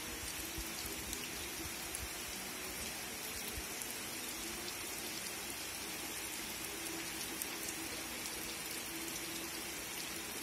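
Heavy rain falling steadily on trees and waterlogged ground, an even hiss with scattered drop ticks.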